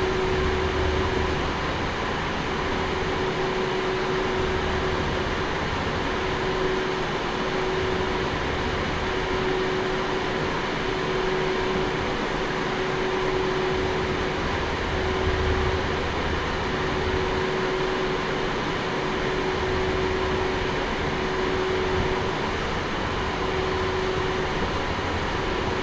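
Steady rushing noise with a faint steady hum under it, the sound of a room fan or white-noise machine running.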